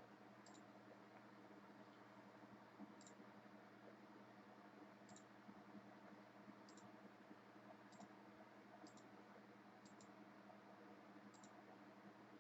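Faint computer mouse clicks, roughly one every one to two seconds, some in quick pairs, over near-silent room tone: the button of an online list randomizer being clicked again and again.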